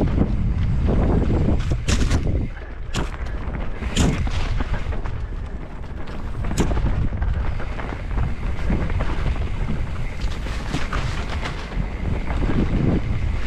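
Mountain bike riding down a rough forest trail, with wind buffeting a helmet-mounted microphone and several sharp knocks and clatters as the bike hits roots and bumps. The loudest knocks come about two, three, four and six and a half seconds in.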